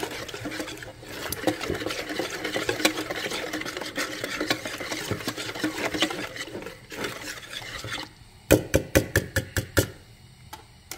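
Metal wire whisk beating a thin flour-and-water batter in a bowl to break up the lumps, a steady wet scraping and clicking. About eight seconds in it gives way to a quick run of about eight sharp, louder clicks within a second and a half.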